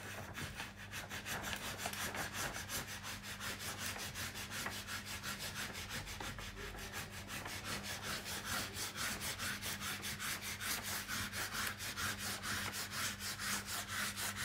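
Quick, even rubbing strokes, about five a second, of a hand over a diamond painting canvas, with a low steady hum underneath.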